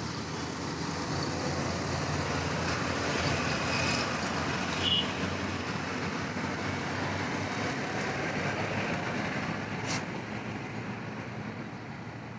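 Steady road-traffic noise from passing vehicles, swelling in the middle, with a brief high-pitched tone about five seconds in and a sharp click near the end.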